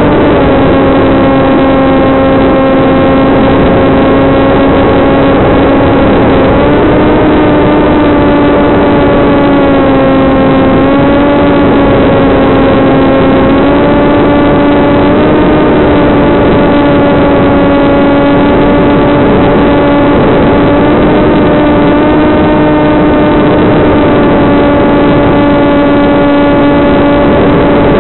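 Electric motor and propeller of a TBS Caipirinha II flying wing running steadily in flight, giving a loud, even drone. The pitch settles lower right at the start as the throttle comes back after launch, then steps slightly up and down a few times with small throttle changes.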